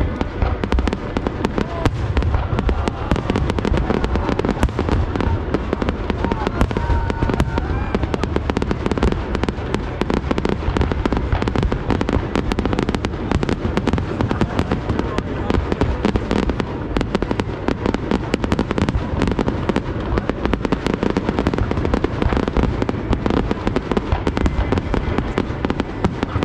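Aerial fireworks display: shells bursting in a dense, unbroken string of bangs and crackles, with no pause.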